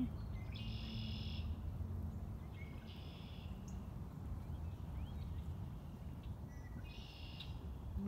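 Red-winged blackbirds singing: three song phrases, each about a second long and a few seconds apart, over a steady low rumble.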